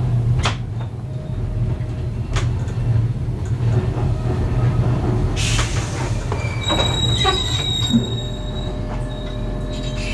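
Train rolling along the track with a steady low rumble and a few sharp clunks. A brief rush of noise comes about halfway, then high-pitched wheel squeal in the second half as the wheels grind against the rails.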